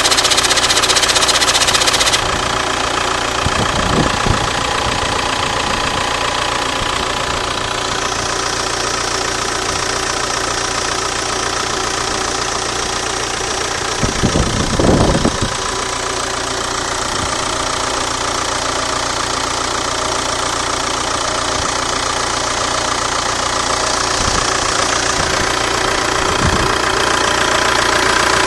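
Audi A4 B7 engine idling steadily, with an intermittent clicking and rattling coming from around the EGR or anti-shudder valve. A hiss sounds over it in the first couple of seconds and again through the middle.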